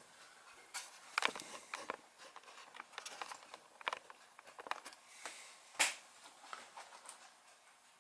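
Sporadic light clicks and taps at irregular intervals, with one sharper click just before the end; small hand-handling noises on a workbench.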